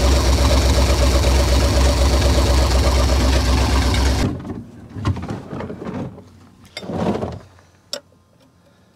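1962 Ford C750's 332 Y-block V8 idling steadily with a deep low rumble while it warms up. The engine sound cuts off abruptly about four seconds in, leaving faint metallic clinks of a wrench on the oil pan drain plug.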